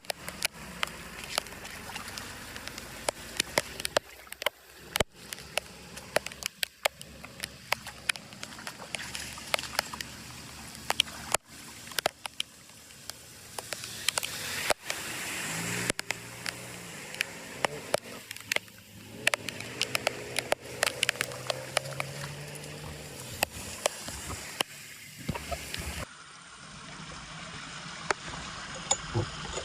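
Floodwater rushing and gurgling as it drains through an unclogged culvert, with frequent sharp clicks and knocks over the water noise. A low steady hum joins in for several seconds in the middle.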